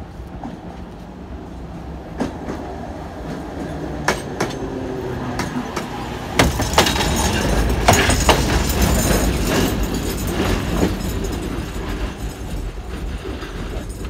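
A 71-619KT tram car approaches and passes close by, its wheels clicking sharply over the rail joints. It gets louder until it goes by about seven to eight seconds in, then fades slowly as it moves away.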